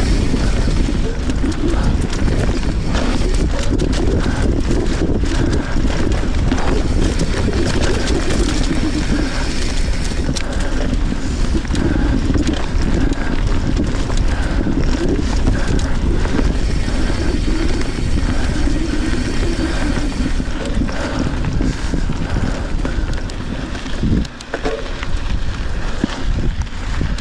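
Wind buffeting the action-camera microphone while riding a Trek Fuel EX 7 mountain bike along a sandy trail, with steady tyre noise and frequent clicks and rattles from the bike. The noise eases briefly about 24 seconds in.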